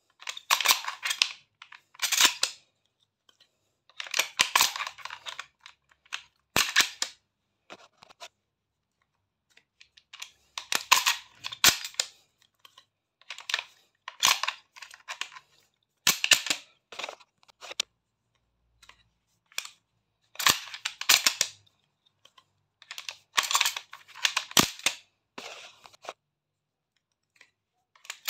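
Shotgun's metal action being worked by hand: about ten bursts of sharp metallic clicks and clacks, each up to a couple of seconds long, a second or two apart.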